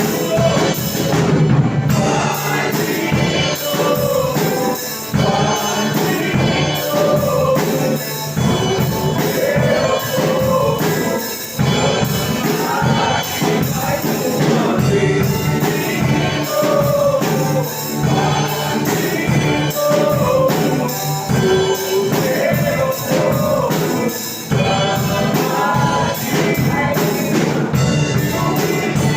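Live gospel praise music: voices singing over a church band, with percussion keeping a steady beat throughout.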